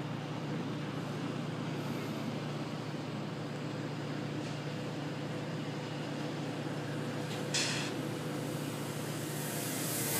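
Electric RC aerobatic plane's brushless motor and propeller giving a steady buzz, swelling louder near the end as the plane comes in low and hangs nose-up close by.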